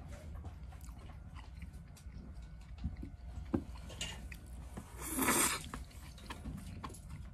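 Close-up eating sounds: chewing with small scattered clicks over a steady low room hum, and one short, louder rush of noise about five seconds in.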